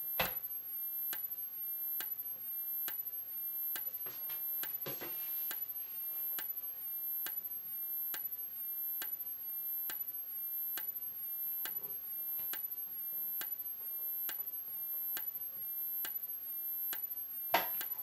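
System Sensor SP1R2475ADA's 24 V, 75 cd strobe flashing: a sharp click with each flash, a bit under two a second, over a very high-pitched whine from its charging circuit that dips at every flash.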